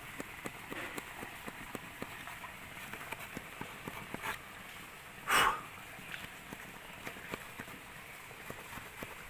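The small folding wood saw of a Victorinox Huntsman Swiss Army knife, cutting into a thick green jamun branch with a run of short scraping, clicking strokes. A louder short burst of noise comes about five seconds in.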